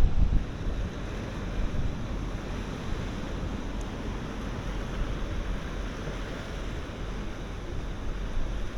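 Rough sea surf and strong wind, a steady rushing noise with no distinct events. A louder gust buffets the microphone right at the start.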